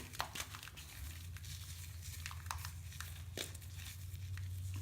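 Leftover bath bomb shell being crushed by hand in bath water: scattered small crackles and crunches. A steady low hum comes in about a second in.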